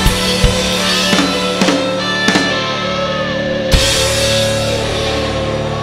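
Rock band music with a drum kit: drum hits over held guitar and bass notes, a last sharp hit about three and a half seconds in, then the chord ringing on.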